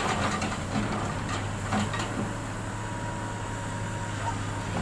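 Excavator's diesel engine running steadily with a low hum, and a faint thin whine above it.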